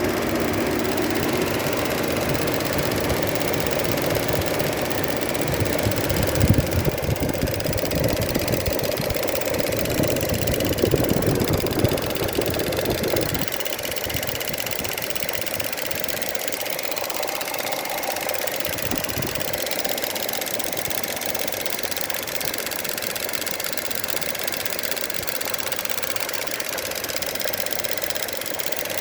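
Opel Mokka 1.4 turbo petrol engine idling with a loud, rapid ticking noise from the EVAP canister purge valve. The sound gets quieter about halfway through.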